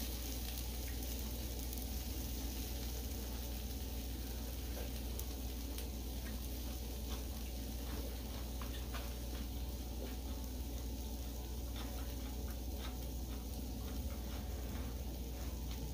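Steady sizzling of beef and vegetables on a hot grill plate, over a low hum, with occasional light clicks of chopsticks and eating.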